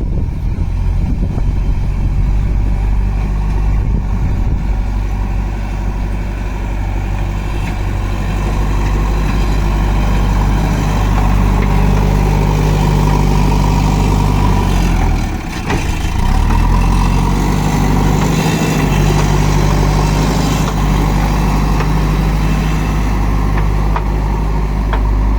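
JCB 3DX backhoe loader's diesel engine running steadily. About fifteen seconds in its pitch drops sharply for a moment and then picks up again.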